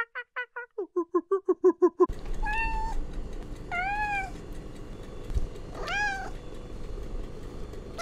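A rapid series of short calls from a gelada, about five a second, stops about two seconds in. A domestic cat then meows three times, each call rising and then falling in pitch, over a steady background hiss.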